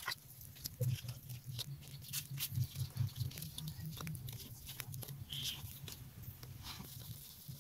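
Light clicks and crackles as leaf-wrapped parcels are laid onto a wire grill over a charcoal stove, with a faint low hum underneath.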